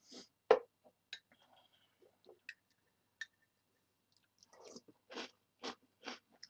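Close-up chewing of Reese's Puffs cereal in milk: a sharp click about half a second in, then from about four seconds in a steady run of crunchy chews, about two a second.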